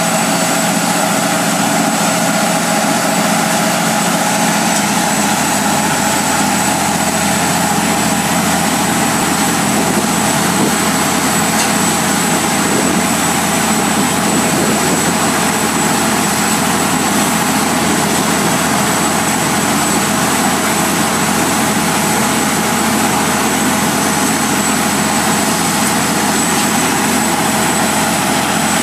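Truck-mounted water-well drilling rig running while it drills: a loud, steady mechanical drone of engine and drilling, with a faint high whine over it.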